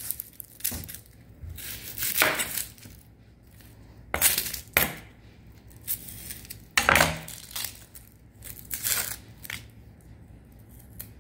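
Chef's knife slicing through an onion and knocking on a plastic cutting board in a few sharp, irregular strikes, with the rustle and crackle of dry onion skin being peeled.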